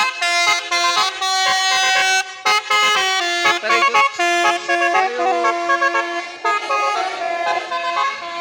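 Basuri telolet horn set on a vehicle playing a quick melody of short stepped notes, often several tones sounding together.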